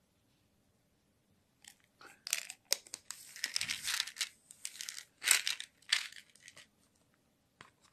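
Crinkling, rustling and light clicks of cosmetic packaging being handled: cardboard boxes and plastic, with a supplement bottle and its cap. It starts about two seconds in and lasts about four seconds, in uneven bursts.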